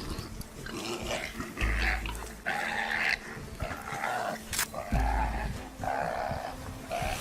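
Animals growling and snarling in a run of short, rough calls, with low rumbles now and then.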